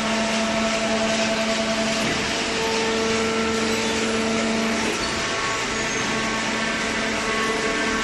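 Horizontal hydraulic cardboard baler running, a steady machine noise with a hum from its hydraulic pump and motor; the hum changes about five seconds in.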